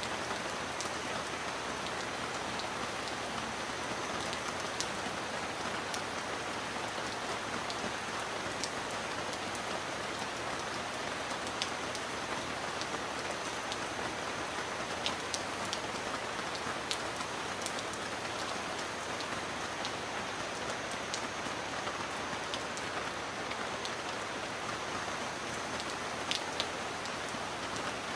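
Steady rain falling in an even, unbroken wash, with scattered single drops ticking sharply above it.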